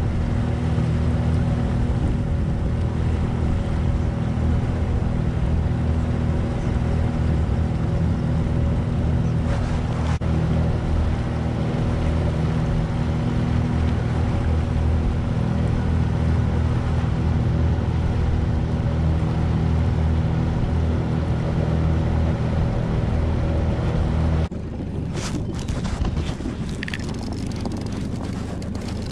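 Boat motor running steadily, with wind noise on the microphone. About 24 seconds in the motor sound stops abruptly, leaving lighter wind noise with a few short knocks.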